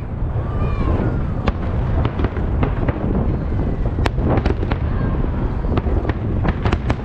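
Fireworks salute: many sharp bangs and crackles over a continuous low rumble, with the sharpest crack about four seconds in.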